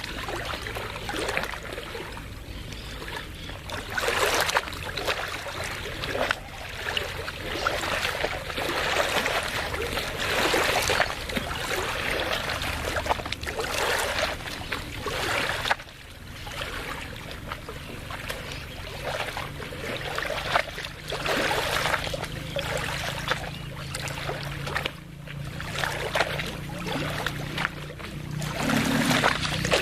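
Small waves of a lagoon lapping and splashing at the water's edge, in uneven surges every second or two. Under them runs a steady low hum that grows stronger in the last third.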